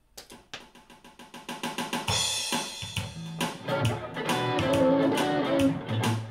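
A drum beat fades in with about four ticks a second, turns into a fuller kit beat about two seconds in, and is joined by electric guitar about three and a half seconds in, playing a gospel shuffle.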